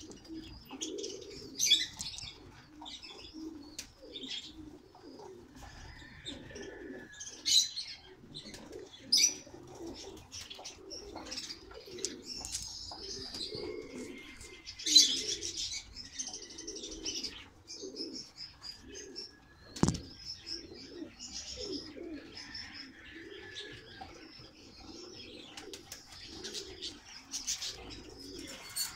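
Domestic pigeons cooing over and over in a loft, mixed with high chirps and short bursts of sound; a single sharp knock about twenty seconds in.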